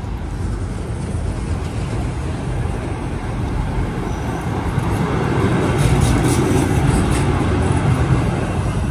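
Electric tram running past close by on street rails, the rumble building to its loudest about six to eight seconds in, over steady traffic noise.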